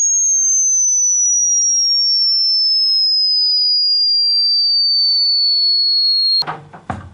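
A single high, pure electronic tone gliding slowly and steadily downward in pitch, then cutting off suddenly near the end as other sound comes in.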